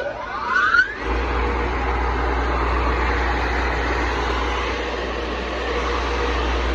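Baler motor starting up, its whine rising in pitch over about the first second, then running steadily with a low hum.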